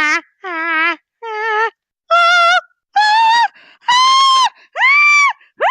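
A voice singing a climbing run of short held notes, about two a second, starting low and stepping up until the last notes are very high and shrill.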